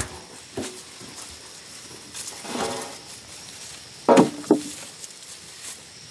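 Knocks of a large metal pot and aluminium tray being handled. About four seconds in come two loud clanks with a brief metallic ring as a whole skinned carcass is dropped onto the tray.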